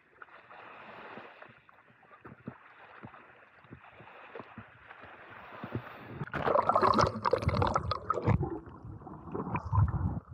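Seawater splashing and gurgling close to the microphone: a soft wash with small clicks at first, then much louder, uneven splashing from about six seconds in.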